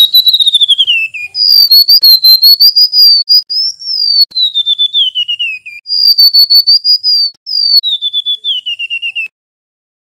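Male golden-bellied gerygone (remetuk laut) singing: four long, thin whistled phrases that waver and slide down the scale in small steps, the last ending a little after nine seconds in.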